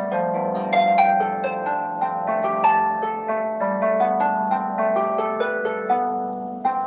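Harp sample: a run of plucked notes, several sounding together and ringing on.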